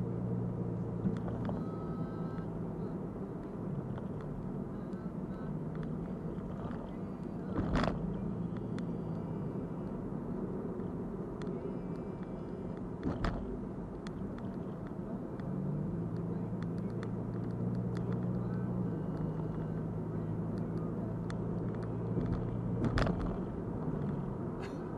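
Car driving along a road, heard from inside the cabin: a steady engine hum and road noise. The engine note rises about fifteen seconds in, and there are three sharp knocks, like the car going over bumps.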